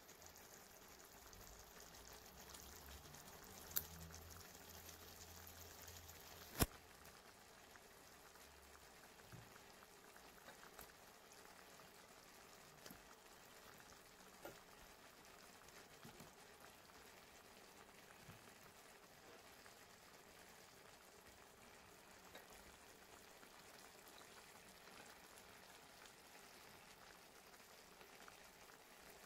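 Faint simmering of sauce around whole sea bream in a pan, with two sharp clicks about four and six and a half seconds in, then a few lighter ticks.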